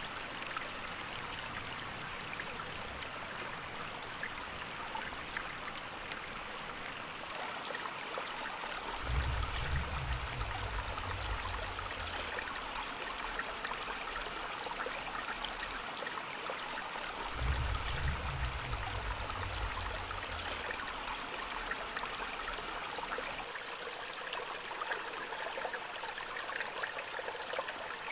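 A shallow stream running steadily over gravel, with two low rumbles a few seconds long, about a third and about two thirds of the way through.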